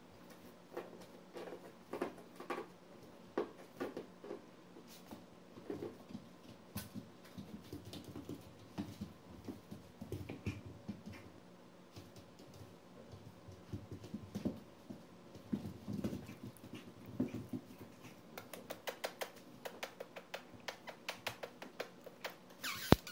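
One-month-old poodle puppies moving about on blankets and the floor: scattered short puppy noises and scuffling, then a run of quick small clicks. A sharp knock sounds just before the end.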